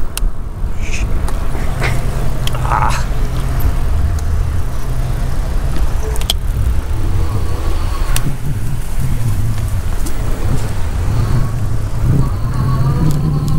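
Road traffic: the engines of a line of cars creeping in a traffic jam, heard close by with a steady low rumble, broken by a few short sharp clicks.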